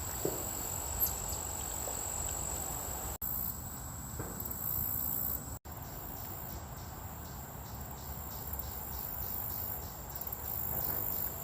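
Insects trilling in a steady, high-pitched chorus, with a second insect call pulsing a few times a second through the latter half. The sound cuts out briefly twice.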